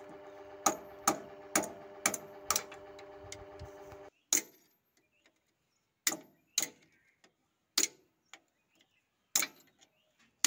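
Hammer blows ringing on a steel spanner to break loose the check nut on a tractor power-steering cylinder rod: five strikes about half a second apart, then about six more spread over the rest of the time. A steady hum with several pitches runs underneath and stops suddenly about four seconds in.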